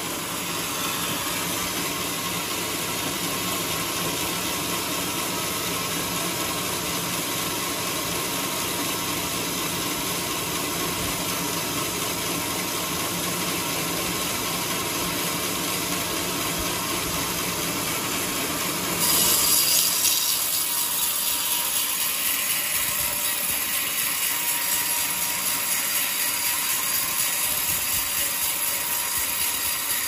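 Sawmill band saw running steadily as a log carriage feeds a coconut-wood log past the blade. About two-thirds of the way through, the sound jumps louder and turns into a high-pitched hiss as the blade bites into the wood, with a faint regular ticking under it.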